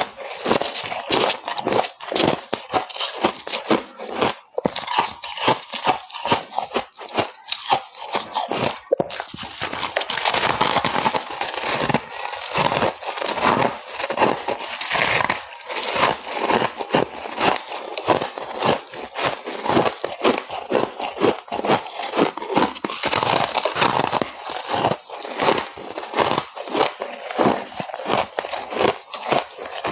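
Close-up crunching of ice or frost, a dense run of sharp crackly crunches with no pause.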